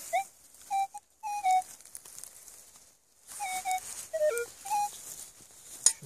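Metal detector giving short beeps that jump between a few pitches, signalling metal still in the hole. Stretches of hissy rustling noise come in between.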